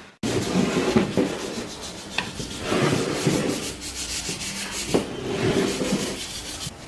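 Wooden bird-cage parts being rubbed or sanded by hand in repeated, uneven strokes.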